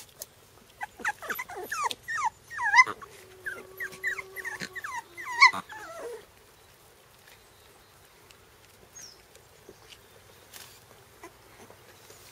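Four-week-old Shiba Inu puppies whimpering and yelping in a quick run of short, high cries that bend up and down in pitch. The cries stop about six seconds in.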